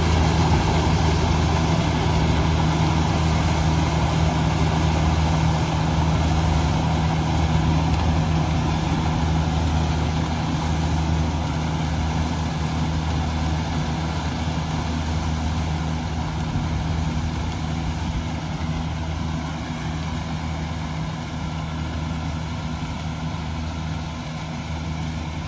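Kubota DC-70G PRO rice combine harvester's diesel engine running steadily under harvesting load, a low hum that grows gradually fainter as the machine moves away.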